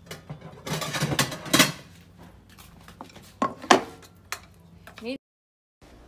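Wooden chopsticks clinking and scraping against a stainless steel bowl while mixing and scooping seaweed salad, with a few sharp knocks; the sound drops out completely for a moment near the end.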